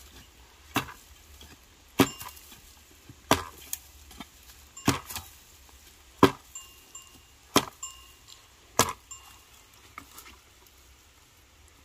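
Wood being chopped: about eight sharp strokes, roughly one every second and a bit, which stop about nine seconds in.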